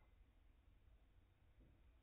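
Near silence: a low steady hum and faint room tone, with no distinct licking sounds.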